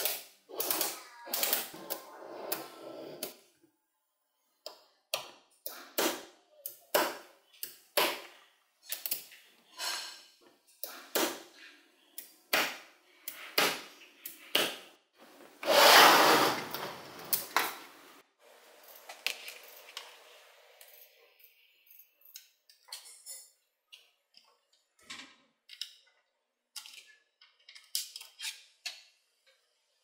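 Small magnetic balls clicking and clacking in irregular sharp clicks as blocks of them are snapped together and set down. About sixteen seconds in there is a louder rattling clatter lasting around two seconds.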